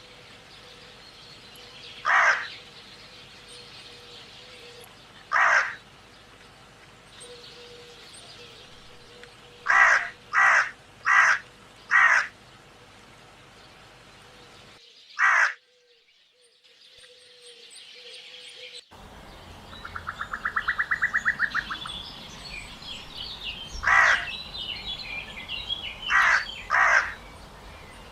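Crows cawing: single harsh caws spaced a few seconds apart, then a quick run of four caws. After a break, a fast rattling call, faint chirping of small birds, and three more caws near the end.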